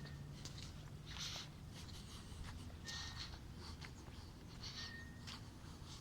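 A bird giving three short, harsh, raspy calls about two seconds apart, over a steady low background hum.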